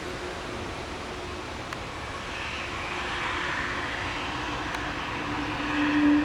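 Jet engines of an Airbus A320neo with Pratt & Whitney geared turbofans: a steady rushing that swells from about two seconds in, under a steady low drone that grows loud near the end.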